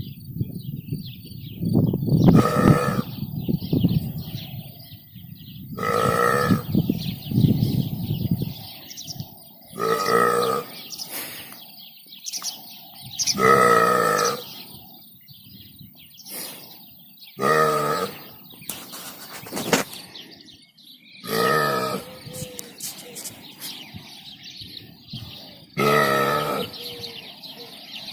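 A person's loud, drawn-out burps, about seven of them, one roughly every four seconds, made at a herd of cows. Lower rumbling sounds fill the gaps after the first two.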